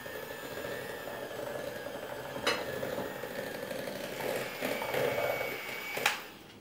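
Electric hand mixer running with a steady motor whine, its twin beaters whisking mascarpone and lemon curd together in a glass bowl. There is a single knock about two and a half seconds in, and the mixer stops with a click near the end.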